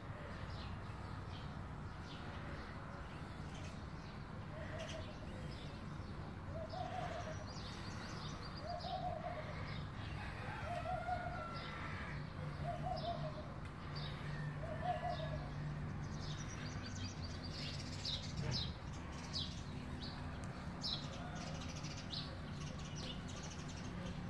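Birds calling: a run of about six short, evenly spaced calls roughly two seconds apart, with scattered higher chirps, over a steady low hum.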